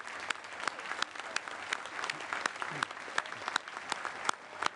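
Audience applauding, with many individual sharp claps standing out over the steady clapping.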